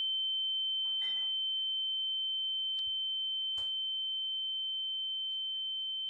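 A single steady high-pitched tone, pure and unbroken, fading slightly, an added ear-ringing sound effect. A brief rustle comes about a second in, and two faint clicks near the middle.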